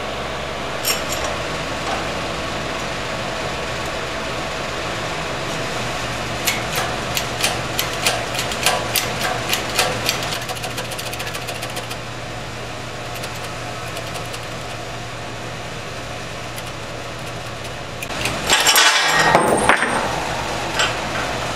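Steady hum of workshop machinery with light metal clinks and knocks as a bearing splitter and transmission shaft are handled and set up on a shop press. A louder burst of noise lasting about a second and a half comes near the end.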